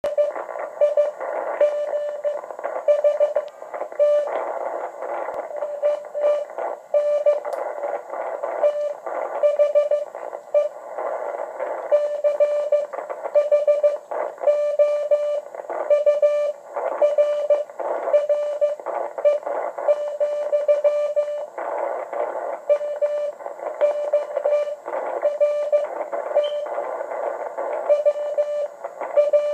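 Morse code (CW) from W1AW's code practice transmission, heard through a Yaesu FT-950 HF transceiver on the 40 m band. A single steady-pitched beep is keyed on and off in dots and dashes over a bed of band hiss and static.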